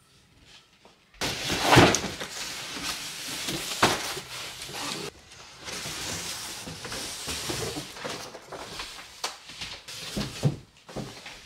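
Cardboard boxes being moved and handled: rustling and scraping of cardboard with a few knocks, the loudest about two seconds in.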